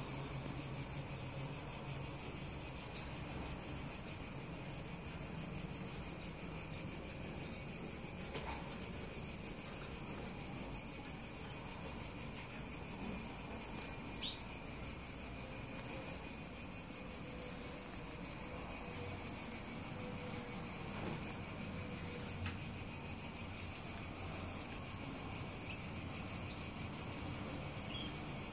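A steady, continuous high-pitched insect chorus, unbroken throughout.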